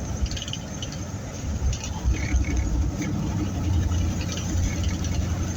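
A pickup truck's engine and road noise heard from inside the cab as it drives slowly: a steady low rumble with a hum that firms up about halfway through, and scattered light ticks and crackles.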